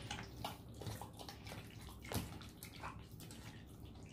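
Hands kneading pieces of pork in a thick char siu marinade in a stainless steel bowl: faint, irregular wet squelches and squishes.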